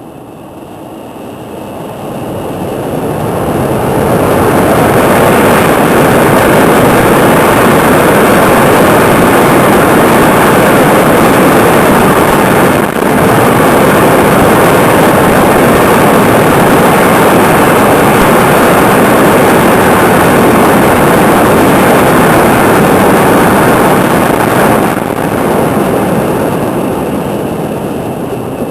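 A Shinkansen bullet train passing at high speed, a loud steady rushing roar with no engine note. It swells over the first few seconds, holds for about twenty seconds with one brief dip near the middle, then dies away near the end.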